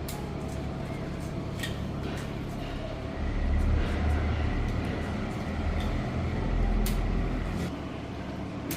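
A low engine rumble, like a passing heavy vehicle, swells from about three seconds in and fades near the end, with a few sharp clicks and faint voices in the background.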